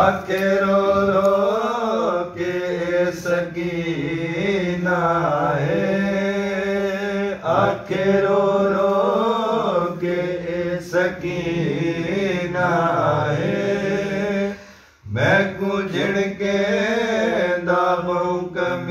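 A man singing a noha, a Shia lament, unaccompanied, in a long wavering chanted melody with one brief pause for breath about three-quarters of the way through.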